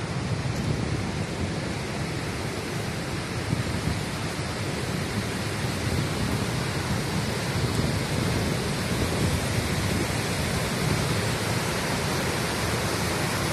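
Wide river waterfall in high flow: a steady roar of white water pouring over rock ledges.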